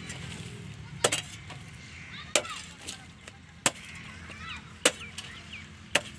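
A pickaxe striking hard-packed soil: five sharp, evenly spaced blows, about one every 1.2 seconds, as the packed earth is broken up.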